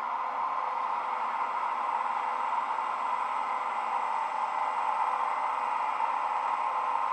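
Leo Soundlab DCC sound decoder playing an ÖBB class 1144 electric locomotive's standing sound through the Piko model's bass-enhanced speaker: a steady hissing hum with a few faint steady tones in it.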